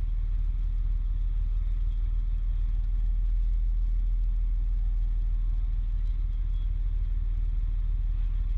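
Steady low rumble of a fire truck on the move, its engine and road noise heard from inside the cab.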